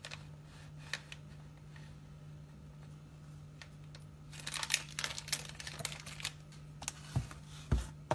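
A metal teaspoon clinking and scraping against a glass mug in a quick run of light clicks about halfway through, over a low steady hum. Two dull thumps near the end as the plastic sugar jar is picked up.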